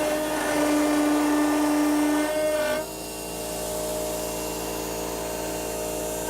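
CNC spindle with an 8 mm carbide cutter milling aluminum: a steady high whine with harsh cutting noise. About three seconds in the cutting noise drops away and a quieter, steady spindle whine carries on.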